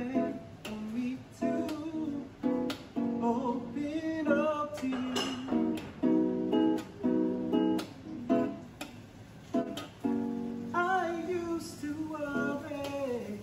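A song: an acoustic guitar strummed in a steady rhythm, with a voice singing over it.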